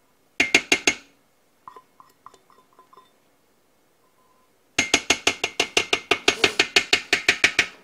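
Rapid metallic clinking of a metal measuring cup being knocked against a stainless steel Instant Pot inner pot to shake out the last of the barbecue sauce. There is a quick run of about five clinks, then a few light ringing taps, then a steady run of about seven clinks a second lasting some three seconds near the end.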